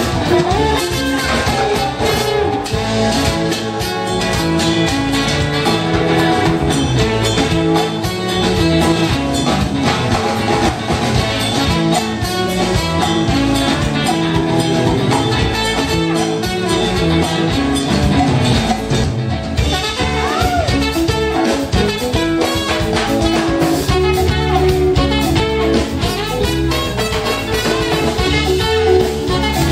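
Live band playing loud through the stage sound system: trumpet over electric guitars, bass guitar and drum kit.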